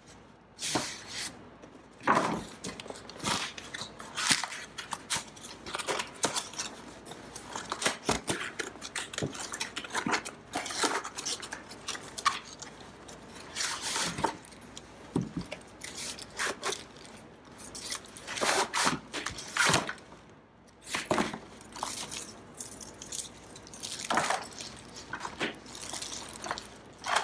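Cardboard packaging being handled and opened: irregular scrapes, rubs and knocks of cardboard sliding on cardboard, with a plastic bag rustling near the end.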